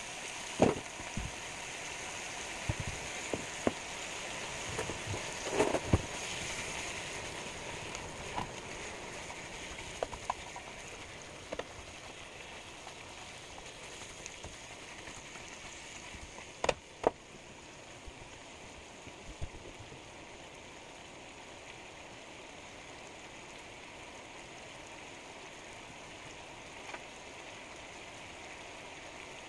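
Strips of bacon sizzling in a nonstick frying pan: a steady hiss with scattered sharp pops of spattering fat, most of them in the first several seconds, and two loud pops a little over halfway. The hiss eases off slightly as it goes on.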